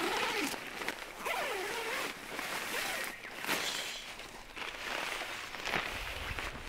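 Nylon tent fabric rustling and crinkling as it is handled, with a zipper along the tent's door seam being pulled in short strokes.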